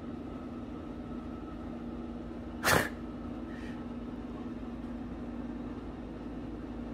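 Steady low hum of a bathroom exhaust fan, broken once, a little under three seconds in, by a brief sharp burst of noise.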